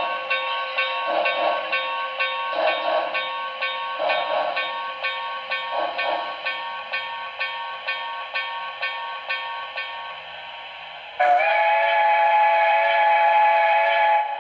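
Sound decoder of an HO-scale Broadway Limited Imports PRR T1 4-4-4-4 duplex steam locomotive model: steam exhaust chuffs about every second and a half over a steady background hiss, spacing out and fading as the engine slows. About eleven seconds in, a loud chime whistle sounds one long blast of about three seconds.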